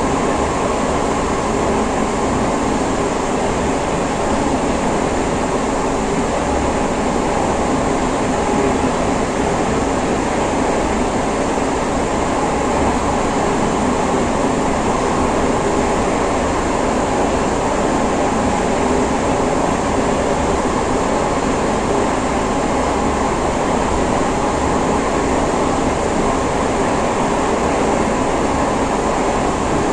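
Interior running noise of a Siemens C651 metro train car at steady speed: a constant rumble and rush of wheels on rail that holds even throughout.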